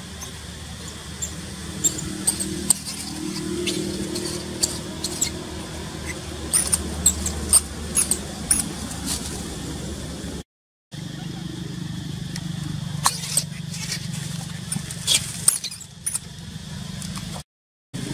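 A steady low hum with many short, high squeaks and clicks scattered over it. The sound cuts out completely twice, briefly, in the second half.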